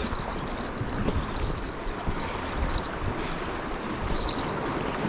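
Steady wind rumbling on the microphone over the wash of the sea at the shore.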